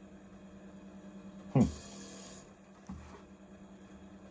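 A low steady hum, with one brief loud sound about a second and a half in and a fainter short one near three seconds.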